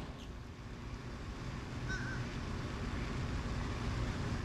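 Low, dense rumbling noise, louder from about a second in, with a short bird call about two seconds in.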